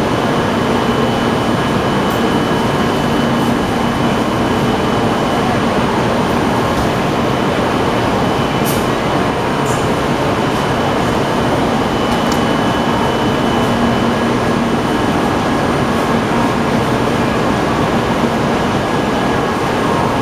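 Steady running noise of a moving train, with a faint steady hum and a few light clicks.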